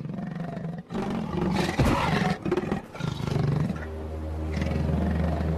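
Leopard growling in a string of rough bursts over the first three or four seconds, then a steady low drone of background music.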